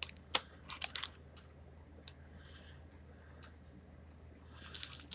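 Packaged items being handled: a few light, sharp clicks and taps, bunched in the first second and a half, with a couple more later and a soft rustle about halfway through.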